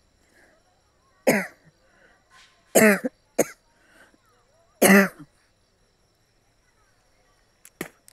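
A person coughing on purpose for a cough challenge: four loud, short coughs over about four seconds, then a faint short one near the end.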